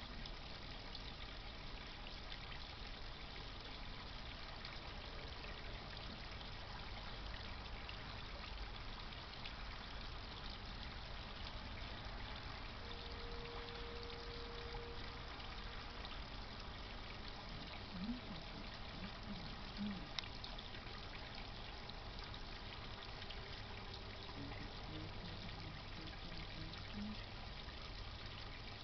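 Water from a garden pond pump trickling and splashing steadily. A faint steady tone sounds for about two seconds near the middle, and a few brief faint low blips come later.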